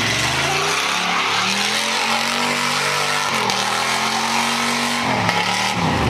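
Muscle car engine held at high revs during a burnout, with rear tyres spinning on asphalt and hissing. The revs dip and recover twice, about three seconds in and around five seconds in.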